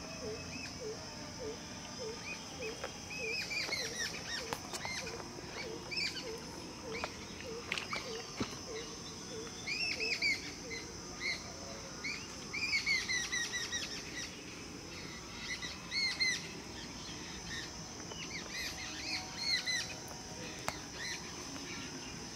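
Birds chirping in short arched phrases, on and off, over a steady high insect drone. For the first third a low call repeats about two or three times a second.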